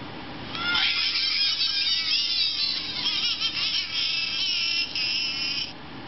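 Electronic plush Red Angry Bird's sound chip playing its high, warbling bird chatter and squawks through a small speaker when squeezed. The sound starts about half a second in and cuts off suddenly near the end.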